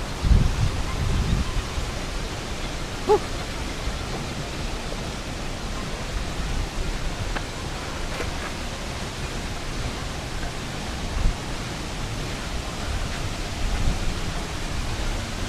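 Steady rushing of a waterfall, heard as an even roar. There are a few low thumps in the first second or so.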